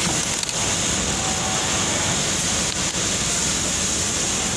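Steady din of industrial sewing machines running on a garment factory floor, among them a Juki single-needle lockstitch machine stitching fabric.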